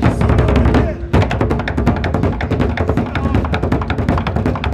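A group drumming fast on wine-barrel drums (wooden barrels with metal hoops and tensioned heads), a dense, driving rhythm of many strokes a second. The drumming drops away for an instant about a second in, then comes straight back in full.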